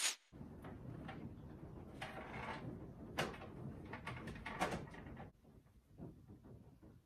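Handling noise: rustling and several light knocks as cables and an HDMI dongle are fitted at the back of a TV, after a short sharp click at the start. The handling dies down about five seconds in.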